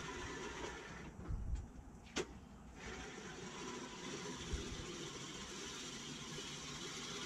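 20-inch manual reel mower with its spinning reel whirring steadily as it is pushed across short grass, heard from a distance. The whir drops away for about two seconds, starting about a second in, with a few low thumps and one sharp click in that gap, then resumes.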